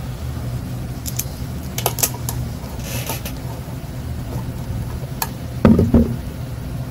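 Small metal clicks and rubbing as a hex key turns the screws that hold the electrical base onto an Olympus BHT/BHTU microscope. The screws are snugged down and then backed off a little. Near the end comes a louder knock of the frame being handled.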